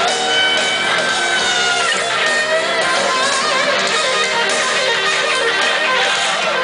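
Heavy metal band playing live: a distorted electric guitar plays a lead line of long held notes that bend in pitch, over the rest of the band.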